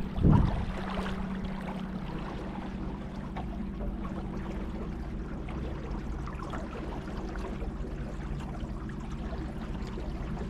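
Water sounds on a river, with small splashes and trickles over a steady low hum.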